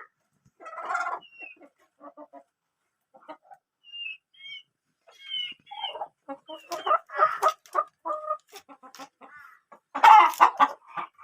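Domestic hens clucking in short, broken calls, loudest in a burst about ten seconds in, with short sharp taps mixed in.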